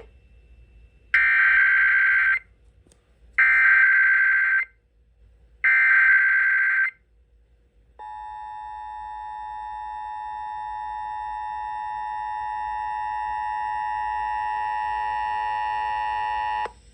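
Emergency Alert System SAME header: three bursts of screeching digital data tones, each about a second long. Then the EAS two-tone attention signal (853 and 960 Hz) is held steady for about nine seconds, growing slowly louder, and cuts off suddenly. Together they open an EAS Required Weekly Test broadcast over the radio.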